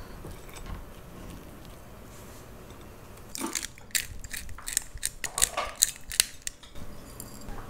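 Pepper mill being twisted over a plate, grinding out black pepper: a run of crackling, ratcheting clicks that starts about three and a half seconds in and stops shortly before the end.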